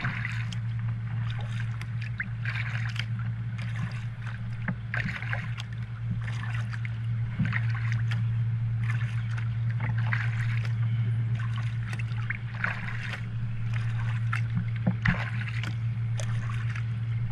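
Kayak paddle strokes dipping and splashing in the water, about one stroke a second, over a steady low hum.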